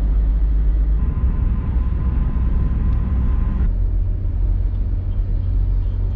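Steady low road and engine rumble of a moving road vehicle, heard from on board, with a faint steady whine in the middle part. The rumble changes character abruptly twice, about a second in and just before four seconds.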